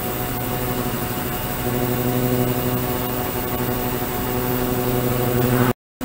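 Ultrasonic cleaning tank running with parts immersed: a steady hum with evenly spaced overtones over a hiss. The hum grows stronger about a second and a half in, and the sound cuts out for a moment near the end.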